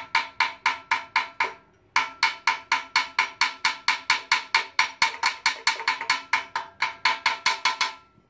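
Rapid, evenly spaced metallic knocking, about five knocks a second, each with a short ring. There is a brief break about one and a half seconds in, and the knocking stops near the end.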